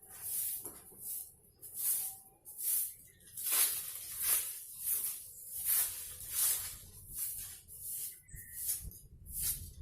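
Rhythmic swishing strokes, about three every two seconds, each a short hiss.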